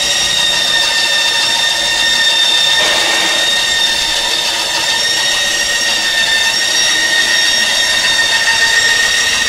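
HDPE pipe butt fusion welding machine running, its motor giving a steady high-pitched whine over a hiss.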